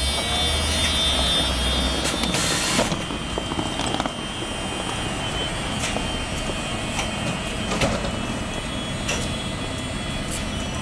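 Bombardier TVR rubber-tyred tram standing at a stop with a steady electrical whine and low hum; about two and a half seconds in a short hiss of air comes as its sliding passenger doors close, after which the hum drops and the waiting tram runs quieter.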